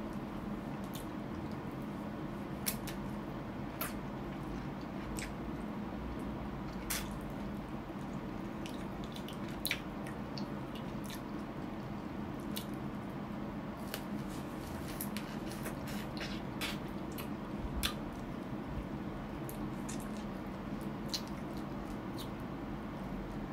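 Close-up eating sounds: wet chewing, sucking and lip smacks on soft braised adobo chicken feet, with many short scattered wet clicks over a steady low hum.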